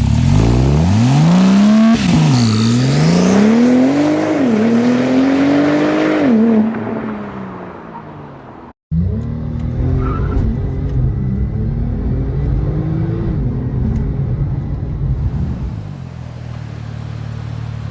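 Porsche 997.2 Turbo S's twin-turbo flat-six at full-throttle acceleration from a standstill. Its note climbs through the revs with two quick upshifts, then eases off about six seconds in. After a short break comes a steadier, lower engine and road drone.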